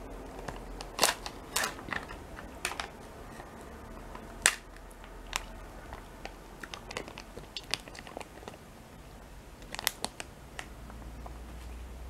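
Foil lid of a plastic yogurt pot being peeled back and handled, giving irregular sharp crinkles and crackles, loudest about a second in, at about four and a half seconds and again near ten seconds.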